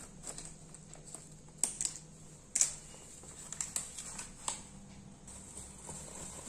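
A plastic-foil packet of gulab jamun mix being snipped open with scissors and handled, giving scattered sharp crinkles and clicks, the loudest about two and a half seconds in. Near the end the dry mix is poured into a glass bowl.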